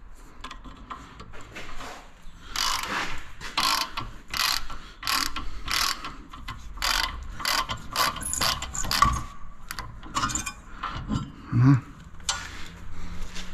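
Hand ratchet wrench clicking in quick repeated strokes, about two a second, as a bolt is worked. There is a louder knock near the end.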